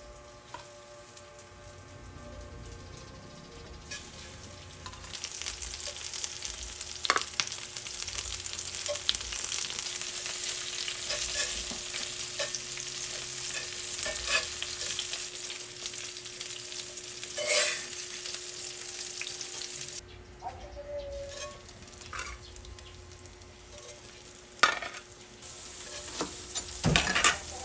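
Hot oil sizzling as food fries in a pan, with scattered clicks and knocks of a utensil against the pan. The sizzle builds a few seconds in and thins out after about twenty seconds, over a faint steady hum.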